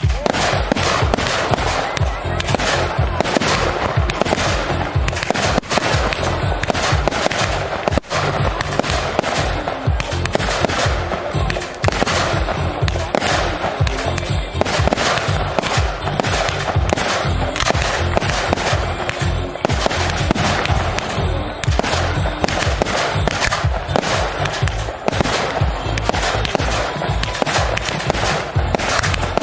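Fireworks display: shells launching and bursting in rapid succession, a continuous barrage of bangs and crackles, with music playing underneath.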